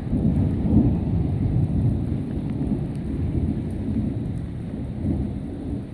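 Rolling thunder: a long, low rumble that swells to its loudest about a second in, rises again briefly near the end and then fades.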